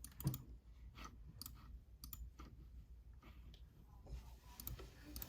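A handful of faint, irregular clicks and light taps in a quiet room, with no speech.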